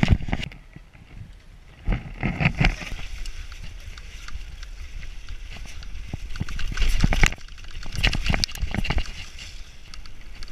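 Mountain bike clattering and thudding down a rough forest trail: tyres over dirt and roots, the frame and chain rattling on each hit, with a low rumble of wind and motion on the microphone. A quieter spell about half a second in ends in a hard thud near two seconds in.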